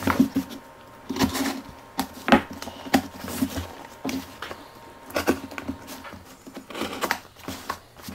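An X-Acto knife cutting into a cardboard shipping box, with irregular scrapes, clicks and taps as the box is turned and handled.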